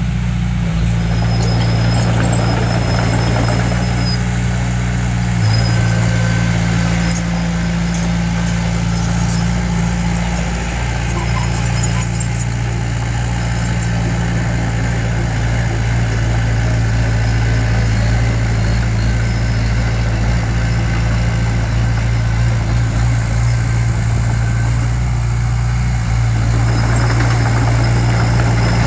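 Heavy diesel engine of earthmoving equipment running steadily at a constant pitch, with faint brief high squeaks near the start.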